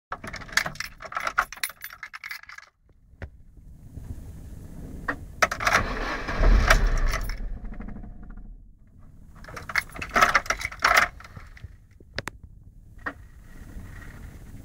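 Car keys jangling and clicking at the ignition in three bursts, with a few single clicks between, over the low rumble of the car's engine.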